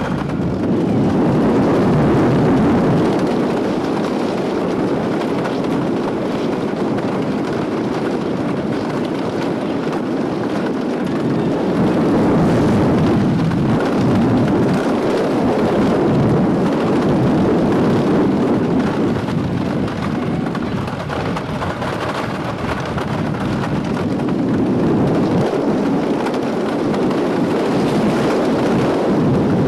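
Wooden roller coaster train running at speed over its track, heard from the front car: a continuous loud rumble and rattle of the train on the wooden track with rushing air, swelling and easing as it goes through drops and turns.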